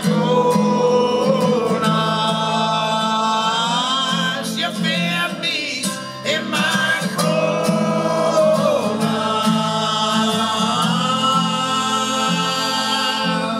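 Several male voices singing long held notes in close harmony over a strummed acoustic guitar, with a short break between phrases about six seconds in.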